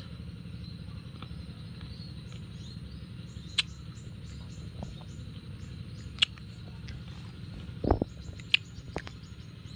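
A person chewing and biting into nam-nam fruit: wet mouth clicks, with a louder crisp bite about 8 seconds in. Short high chirps repeat in the background over a steady low hum.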